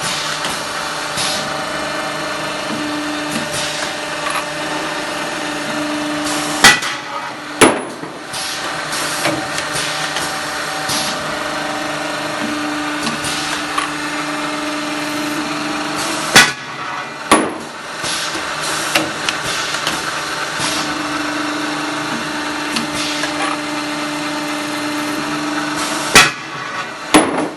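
End-facing and chamfering machine working in repeated cycles: a steady machining tone for several seconds, then two sharp clanks about a second apart. The cycle repeats three times, roughly every ten seconds.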